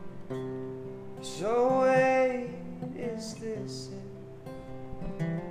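Acoustic guitar playing sustained chords, with a man's voice singing one long note that swoops up about a second and a half in and is held for over a second.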